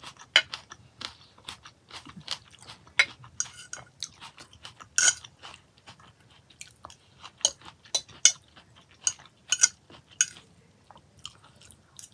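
Close-miked chewing of a mouthful of raw salad with sweetcorn and broccoli: irregular, sharp, wet crunches, a few a second, with quieter pauses between.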